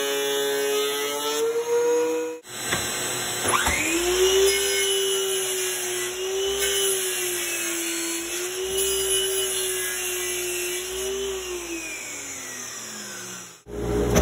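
A DeWalt thickness planer runs for about two seconds, its pitch rising slightly just before it breaks off. Then a sliding miter saw's motor spins up with a quickly rising whine, holds a slightly wavering steady pitch while the blade crosscuts a cherry board, and winds down with a falling pitch near the end.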